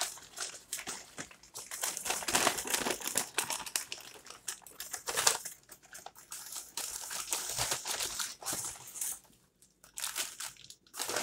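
Paper takeout bag rustling and crinkling as it is handled and rummaged through, in irregular bursts of crackle, with a short pause near the end.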